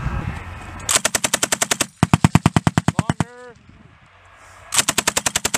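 Belt-fed machine gun firing three bursts of automatic fire, each about a second long at roughly a dozen rounds a second, with a short pause before the last burst.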